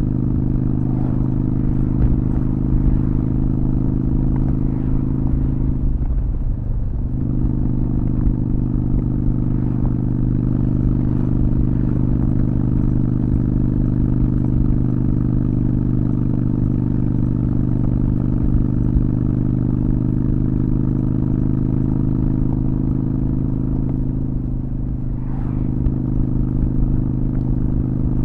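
Honda Shadow VT600 V-twin engine running at a steady speed on the move. Its note breaks off and smears briefly twice, about six seconds in and near the end, then settles back to the same steady pitch.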